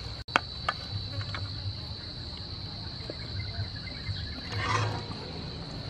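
Insects making one steady, high-pitched drone, with a few light clicks about a second in and a short rustling noise near the end.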